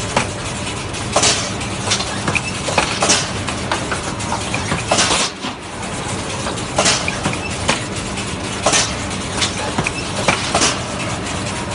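Magnum ice cream bar production machine running: a steady mechanical hum with a short clattering burst repeating about every two seconds.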